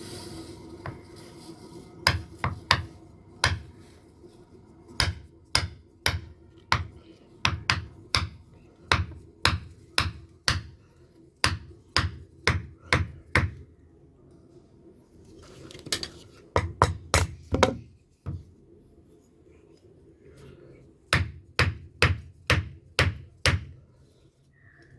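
A blacksmith's hand hammer strikes a knife blade on an anvil in a rapid series of sharp metallic blows, about two to three a second. The blows come in three runs with short pauses between.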